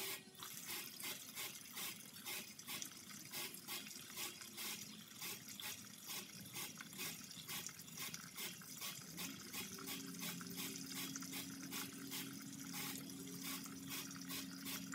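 Old gasoline streaming out of a plastic drain tube into a plastic pail, splashing and gurgling in regular spurts about twice a second as air pressure from a blow nozzle pushes it out of the fuel tank. A low steady tone joins about two-thirds of the way through.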